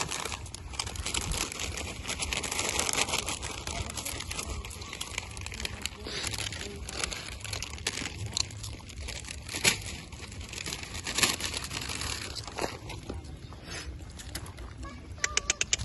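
Continuous crinkling and rustling with scattered sharper clicks, two of them louder in the middle. Near the end it turns into a quick, regular ticking, about five ticks a second.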